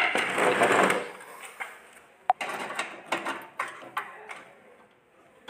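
Handling noises from work on a microwave oven's parts: about a second of dense scraping and rustling, one sharp click a little after two seconds, then lighter clatter that dies away.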